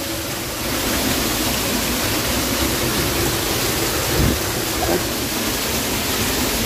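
Waterfall cascading down a rock face close by, a steady loud rush of falling water. A brief low thump about four seconds in.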